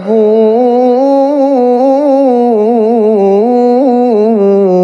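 A man reciting the Quran in melodic tilawah style, holding one long vowel that wavers and trills up and down in pitch without a break, sung into a microphone.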